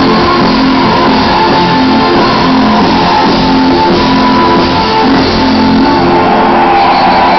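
New wave rock band playing live through a venue PA, an instrumental stretch with electric guitar to the fore and no vocals.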